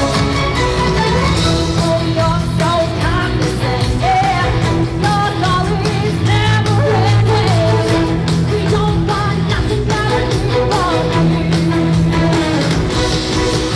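Loud rock-and-roll song with singing over a band track.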